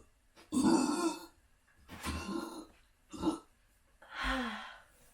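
A woman burping: four short throaty burps a second or so apart, the last with a low, falling pitch.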